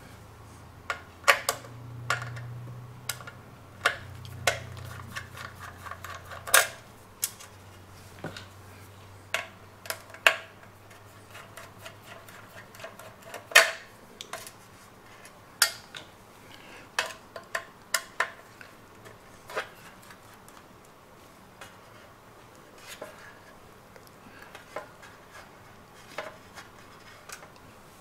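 Screwdriver and small screws clicking and clinking against the DVR case while the hard drive's mounting screws are taken out: irregular sharp metal ticks, a few louder clanks among them.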